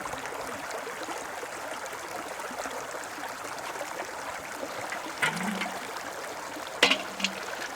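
Steady rush of a mountain stream flowing. About five seconds in there is a short low pitched sound, and near the end a few sharp clicks.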